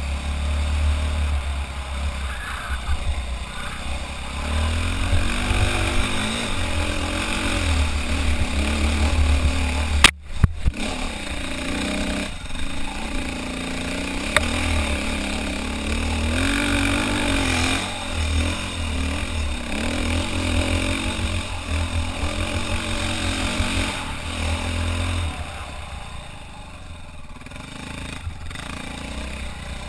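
Dirt bike engine pulling up a steep single-track hill climb, its pitch rising and falling with the throttle over a heavy low rumble. There is a sharp knock about ten seconds in, and the engine eases and gets quieter near the end.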